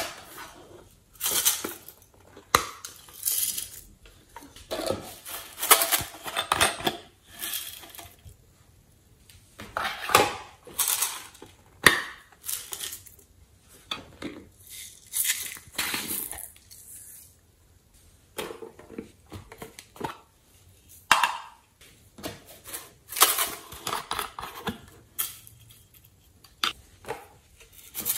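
Small plastic containers clinking and rattling as they are handled, opened and emptied over a glass bowl of slime, with glitter and sequins scattering onto it. The bursts come irregularly, with a short lull about two-thirds of the way through.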